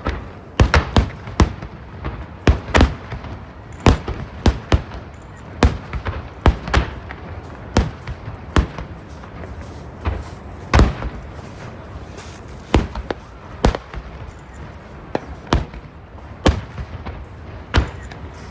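Fireworks shells bursting in a rapid, irregular series of sharp bangs, about one or two a second, some trailing off in a short rumbling echo.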